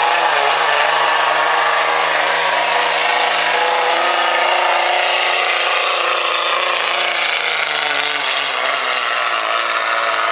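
Dodge Ram pickup's Cummins common-rail turbo diesel at full throttle, pulling a weight sled: a loud, steady engine drone with a hiss over it. Its pitch steps down a little just after the start and again about eight seconds in, as the engine is pulled down under the growing load of the sled.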